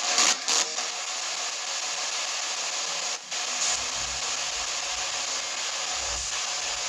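S-Box ghost box putting out a steady hiss of static, with a few sharp clicks near the start and a brief dropout about three seconds in. A low rumble runs underneath from about four seconds in.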